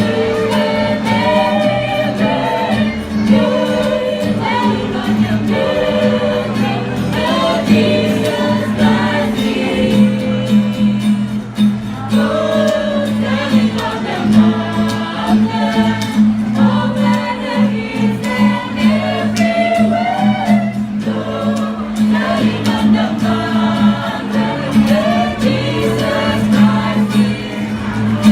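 A choir of carol singers singing a Christmas carol together, described as melodious.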